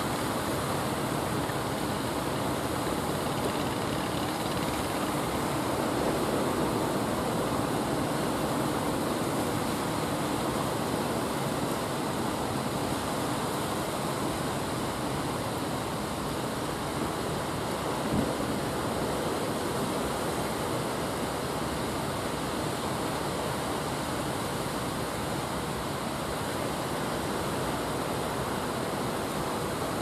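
Rough surf breaking and washing on the beach as a steady rush of noise, with one brief knock a little past halfway.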